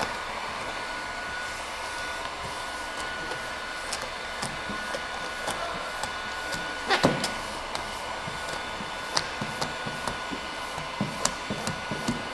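Vinyl wrap film crackling and popping as it is stretched and handled over a car body panel, with a longer, louder crackling rustle about seven seconds in. A steady blowing noise with a faint high whine runs underneath.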